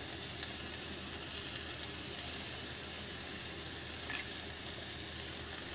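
Bitter gourd, onion and spice masala frying in a nonstick wok, a steady soft sizzle with a few faint clicks.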